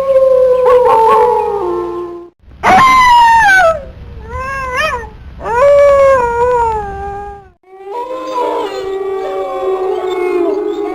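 Wolves howling. A long howl falls in pitch and ends about two seconds in; then come a howl that starts high and slides down, a short wavering one, and another falling howl. From about eight seconds several wolves howl together in an overlapping chorus.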